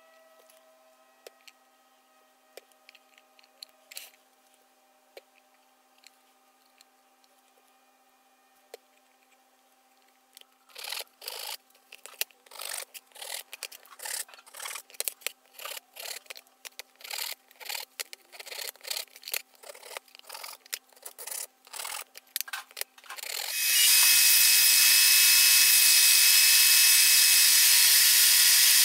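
After a quiet stretch with a few faint ticks, a hand saw cuts wood in quick strokes, about two a second. About 24 seconds in, a combination belt and disc sander starts up and runs steadily and loudly.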